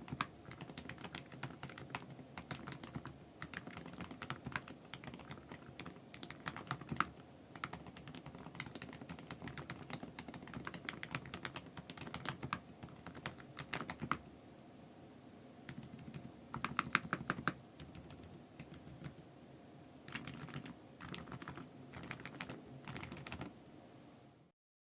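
Typing on an SC Bridge 75 HE keyboard fitted with lubed Outemu Peach Silent Magnetic switches: a steady run of quiet keystrokes, with a brief lull a little past the middle, then a quick burst of strokes.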